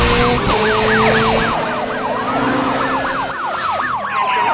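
Emergency-vehicle siren in a fast yelp, its pitch sweeping up and down about three times a second, joined near the end by a second siren tone gliding slowly downward.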